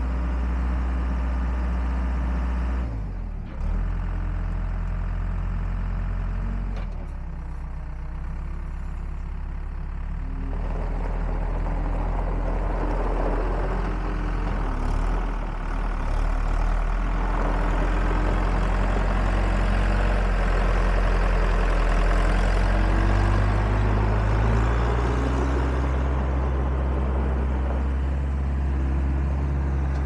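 Case 75XT skid steer's diesel engine running as the machine is driven and manoeuvred, its pitch dropping and rising several times with throttle and load. A rougher hiss joins it through the middle of the stretch.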